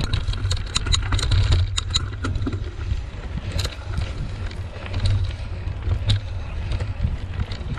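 Mountain bike ridden over bumpy grassy singletrack: a steady low rumble of wind buffeting the handlebar-mounted camera's microphone, with the bike's clicks and rattles over the rough ground, thickest in the first couple of seconds and scattered after.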